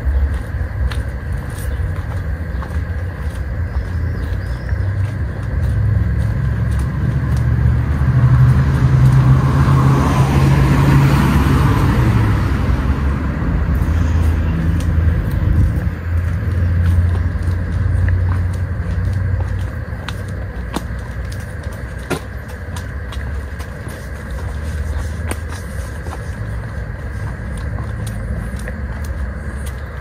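A car passing on a road nearby: its tyre and engine noise swells to a peak about ten seconds in and fades away a few seconds later, over a steady low rumble.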